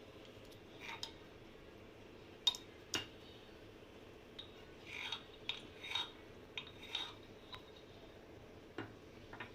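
A spoon scraping and clinking against kitchen containers in about ten short, irregular strokes as ground tulsi leaf paste is scooped into a strainer set over a bowl.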